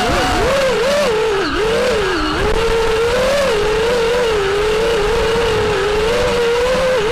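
FPV quadcopter's brushless motors whining in flight, the pitch rising and falling constantly with the throttle, with a couple of deeper dips in the first few seconds.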